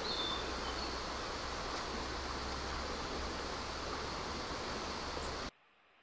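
Steady rushing of river water, with a brief high whistle just after the start. The sound cuts off abruptly about five and a half seconds in, leaving only a faint hiss.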